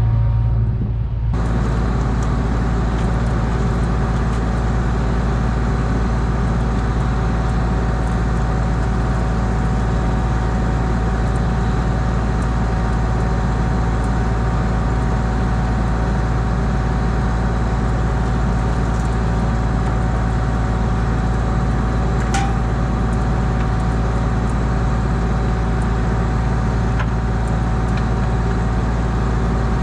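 Large farm-machine engine running steadily: a deep, even drone with steady hum tones. About a second in, a broader layer of mechanical noise joins it and holds.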